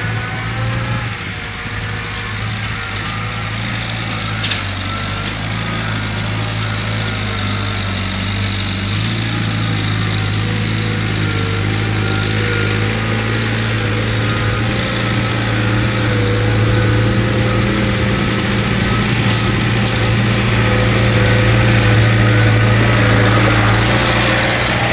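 John Deere 110 backhoe loader's diesel engine running steadily under load while it pulls a three-point-hitch spring-tine cultivator through rocky soil. The engine grows louder as the tractor approaches and passes close by near the end.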